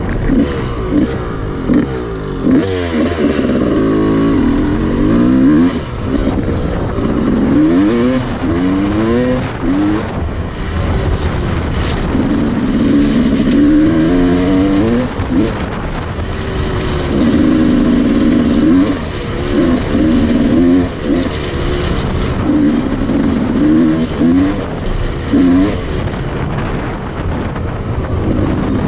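Dirt bike engine heard from on board while riding, revving hard. Its pitch climbs in repeated rising sweeps as the bike accelerates and shifts up, then eases off.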